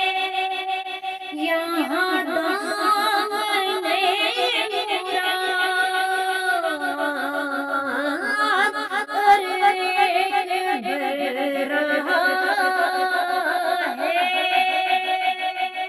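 A naat, an Urdu devotional song in praise of the Prophet Muhammad, sung in long, wavering, ornamented notes.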